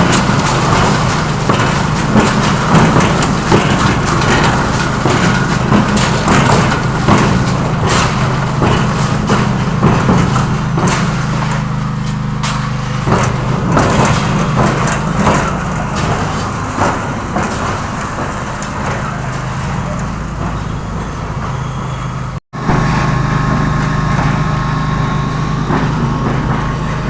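Engine-driven concrete mixer running steadily, with repeated clattering and scraping of concrete and aggregate. There is a brief cut about 22 seconds in, after which the engine hum goes on.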